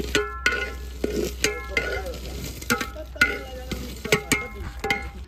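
A metal ladle stirring rice in a large metal degh pot, knocking against the pot about a dozen times with clanks that ring briefly.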